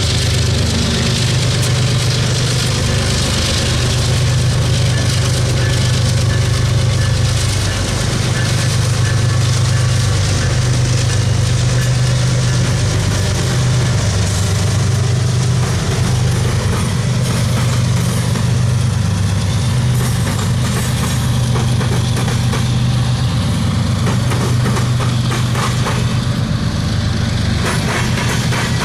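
BNSF diesel locomotive engine running with a loud, steady low drone that wavers slightly in pitch.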